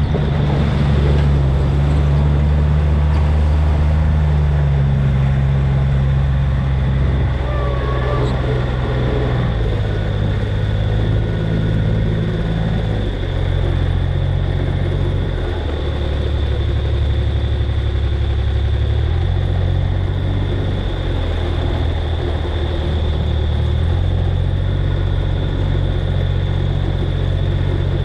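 Engine of a slow-moving farm vehicle running steadily, its low note dropping and rising several times with the throttle.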